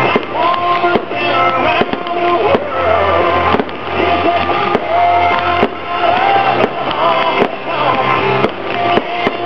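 Rock music with guitar plays loudly throughout, while aerial firework shells bang repeatedly over it, roughly once a second.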